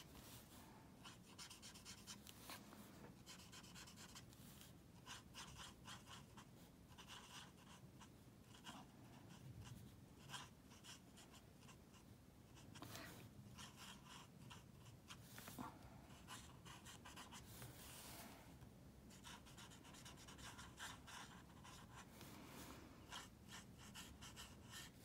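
Faint scratching of a Stampin' Blends alcohol marker's brush tip colouring on cardstock, in short runs of quick little strokes with brief pauses between.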